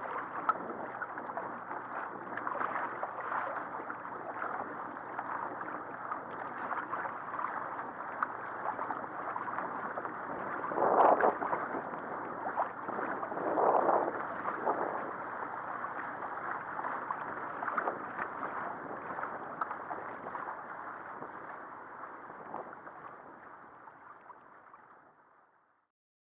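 Water rushing and splashing along a kayak's hull as it moves under an electric trolling motor, with a faint steady low hum beneath. Louder splashes come about eleven and fourteen seconds in, and the sound fades out near the end.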